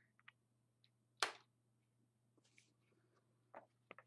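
Near silence broken by a few small clicks and taps, with one sharper click about a second in.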